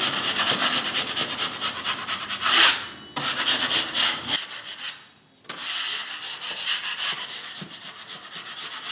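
Steel drywall knife scraped over dried joint compound on drywall, a rough rasping scrape in quick repeated strokes, with a short break about halfway through. It is knocking the dried ridges and dropped chunks of mud off the seams before the final skim coat.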